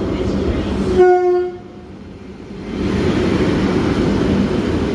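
A Class 90 electric locomotive and its coaches passing close by, with one short single-note horn blast about a second in. The sound drops away for a moment after the blast, then the steady rumble of the passing train returns.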